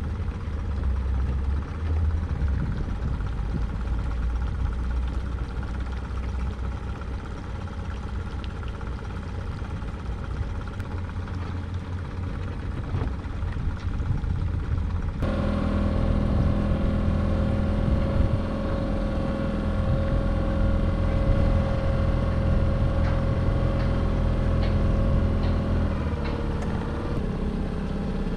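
An engine running steadily. About halfway through the sound changes abruptly to a steadier engine hum with several clear pitched tones.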